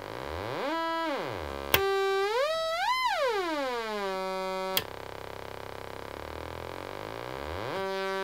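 Reverse avalanche transistor oscillator (a DIY modular-synth VCO with a ramp-wave output) being swept with its Rate knob. A buzzy ramp-wave tone glides up and down in pitch twice, with two sharp clicks. Then it drops to a low ticking buzz before rising to a steady tone near the end.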